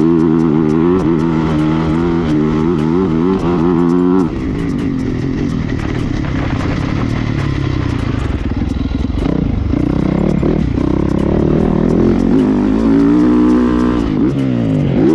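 Yamaha motocross bike's engine heard from on board, held high in the revs with the pitch wavering, then the throttle chopped about four seconds in. It runs rougher and lower for several seconds before revving up again near the end.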